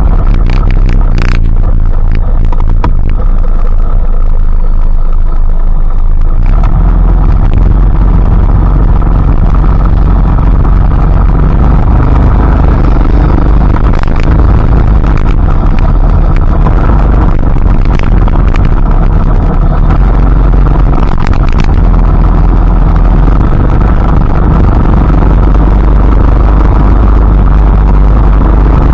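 Steady rain with a deep, constant rumble underneath, and a few sharp taps of drops now and then.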